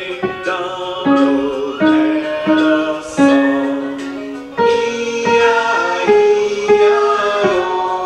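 Grand piano played slowly by a beginner: a simple melody of single notes, one about every half to three-quarters of a second, with some notes held longer.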